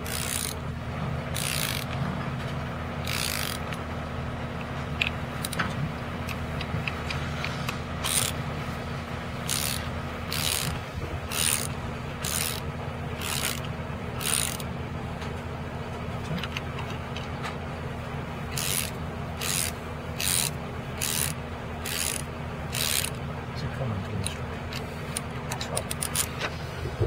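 Ratchet of a torque wrench with a 19 mm socket clicking as it is swung back and forth to tighten a nut on a bolt through the rail, in short bursts about one to two a second, in runs with pauses between. A steady low hum runs underneath.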